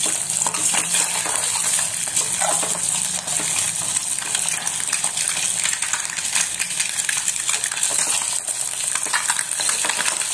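Whole boiled eggs sizzling in hot oil with turmeric in a steel pot, while a metal spoon scrapes and clinks against the pot as they are turned.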